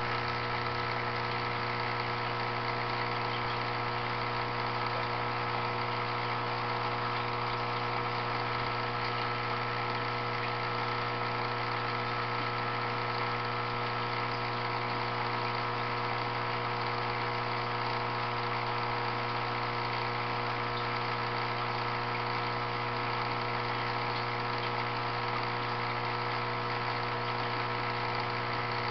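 Steady electric hum of an aquarium pump, several constant tones sounding together without change.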